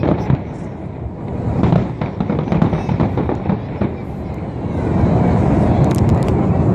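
Fireworks exploding in a dense barrage of booms and crackles, growing to a louder, continuous rumble about five seconds in.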